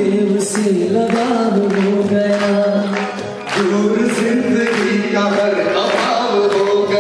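Hindi devotional song (bhajan) music: a held, gently bending melody with singing over a steady beat of about two strikes a second.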